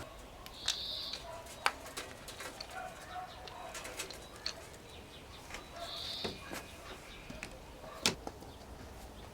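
Birds calling outdoors: two short high calls several seconds apart, with faint lower calls between. A few sharp clicks of handling are heard alongside.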